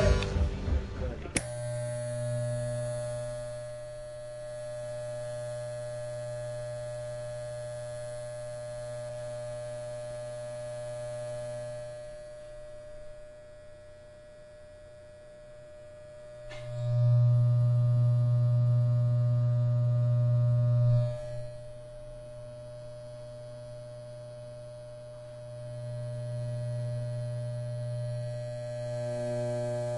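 Electric hair clippers buzzing steadily, swelling louder for about four seconds a little past halfway, then easing back down.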